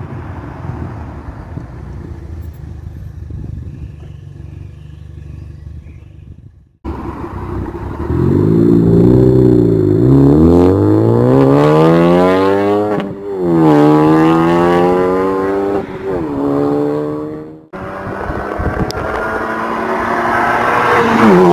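Ford Focus ST250's turbocharged four-cylinder petrol engine through a loud custom exhaust. A steady drone fades away over the first several seconds; then the engine is revved several times, pitch rising and falling; near the end it accelerates hard with a rising note, loudest at the very end.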